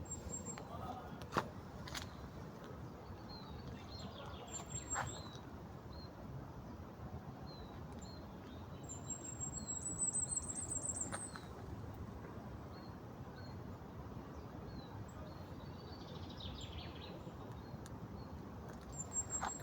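Small birds chirping outdoors: one repeats a short high chirp about once a second, and a rapid high trill comes about ten seconds in, over a steady background noise with a few sharp clicks.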